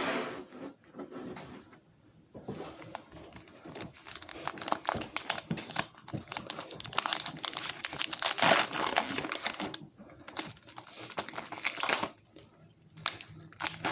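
A Pokémon card booster pack wrapper being torn open and crinkled by hand: dense crackling for several seconds, a pause, then more crinkling near the end.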